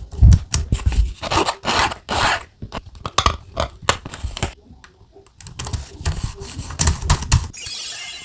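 Rubbing and scraping with scattered sharp clicks: a sticker being peeled and smoothed onto a plastic keyboard keycap. A steady hiss near the end.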